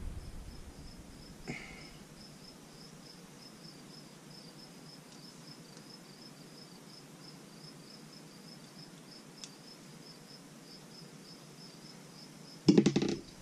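A cricket chirping in the background: a steady, even run of high chirps, about three a second, fading out near the end. A faint click comes about a second and a half in.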